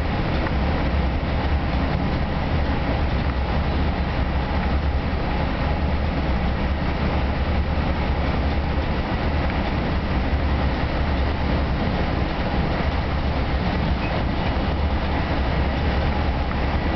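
Steady running noise inside a bi-level commuter rail car at speed: wheels rolling on the rails under a deep, even rumble, with no separate clicks or jolts.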